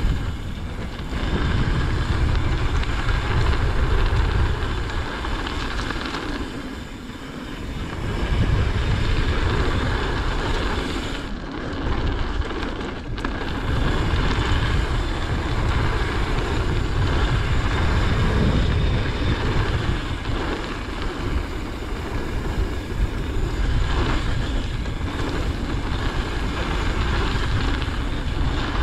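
Mountain bike tyres rolling fast over a packed dirt-and-gravel trail, with heavy wind rumble on the microphone; the noise eases twice briefly.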